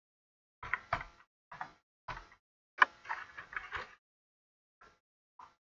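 Computer keyboard keystrokes typing in short irregular bursts, with a denser run a little before the middle and a few single taps near the end.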